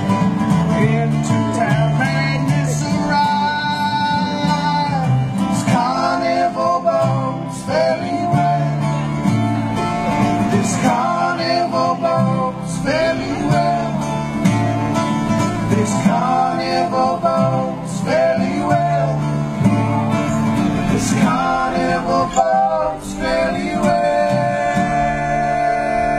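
Two acoustic guitars and an upright bass playing a bluegrass tune live, the guitars strummed and picked over the plucked bass.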